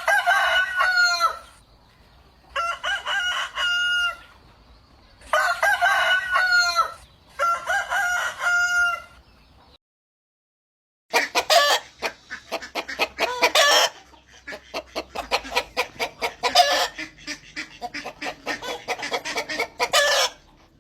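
Chicken sound effects: four drawn-out rooster crows, each about a second and a half long. After a short break comes a long run of rapid clucking.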